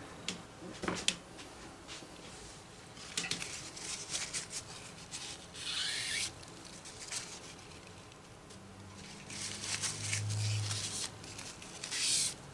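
Folded paper towel rubbed and dabbed on a bare wooden guitar body, wiping potassium permanganate stain over a filled repair: scratchy rubbing in short bursts every couple of seconds, the loudest near the end. A short low hum comes in about ten seconds in.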